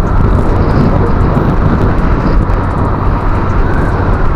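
Steady rushing wind and road noise from a Honda Click 125i scooter under way, picked up by an action camera's built-in microphone.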